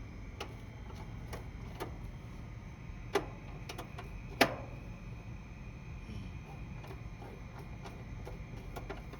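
Scattered sharp clicks and knocks, the loudest about four and a half seconds in, over a steady low hum.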